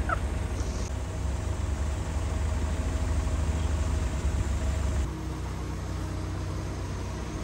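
A heavy vehicle's engine running steadily with a low rumble. About five seconds in it drops away, leaving a quieter steady hum.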